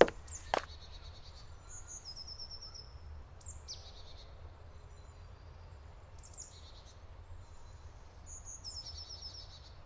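Forest ambience: small songbirds giving high chirps and short trills of quickly repeated notes, several times, over a low steady rumble. Two sharp knocks right at the start.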